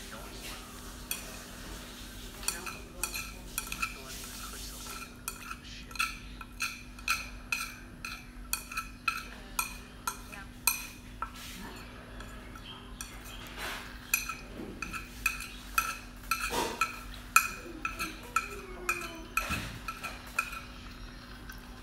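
Chopsticks tapping and scraping against a ceramic bowl while stirring and gathering instant noodles: a rapid run of clinks, a few a second, each ringing briefly.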